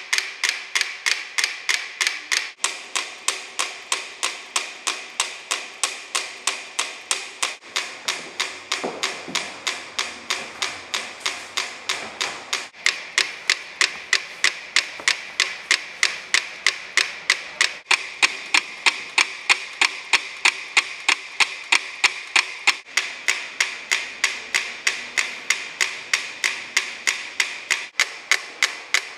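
Three small wind-up mechanical metronomes ticking with a fast, even run of sharp clicks. Their pendulums swing in step, pulled into sync by the shared board rolling on the cans beneath them.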